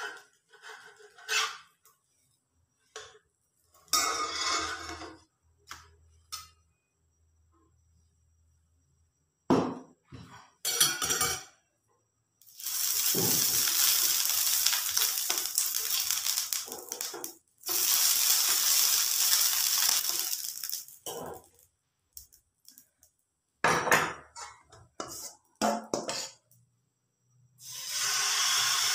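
Metal spatula and plate clattering against a nonstick frying pan as a cooked pancake is lifted out, then two long stretches of hissing as the hot pan is wiped out with a cloth. More clinks follow, and near the end hissing starts again as a ladle of batter goes into the pan.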